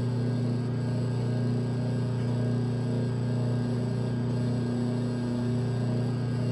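Electric wire stripping machine's motor running with a steady low hum while a fine copper wire is fed through its blade to slit the insulation.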